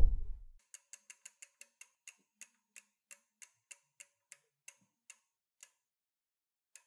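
Logo-animation sound effect: a low thud, then a long run of light ticks that slows as it goes, from about seven a second to about three a second, and one last faint tick near the end.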